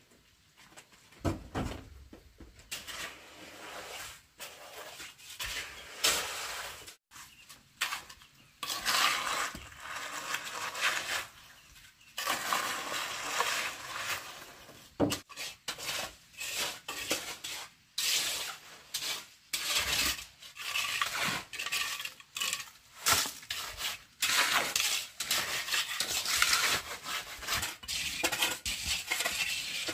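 Small metal shovel scraping and scooping through wet, gravelly concrete, spreading it out, with many short, irregular scrapes and clinks of the blade against stones.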